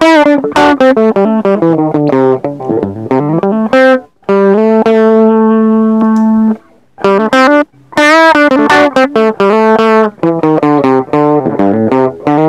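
Electric guitar playing quick single-note runs and one long held note through a TC Electronic HyperGravity mini compressor, first with the pedal bypassed. After a short pause about seven seconds in, the playing starts again with the compressor switched on, which makes the note attacks clearer and more even.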